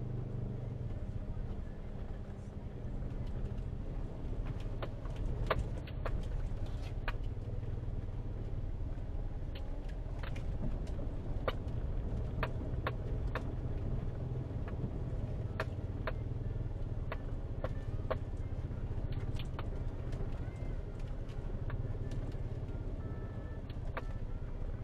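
Perodua Myvi driving slowly over a rough, potholed dirt track, heard from inside the cabin: a steady low engine and tyre rumble with frequent sharp knocks and rattles as the car jolts over bumps.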